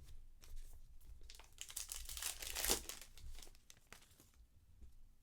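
A trading card pack's wrapper crinkling as it is torn open and crumpled, loudest about two to three seconds in and stopping a little after four seconds.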